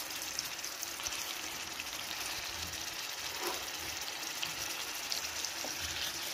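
Marinated chicken leg pieces sizzling in hot mustard oil in a pan: a steady hiss with fine crackling.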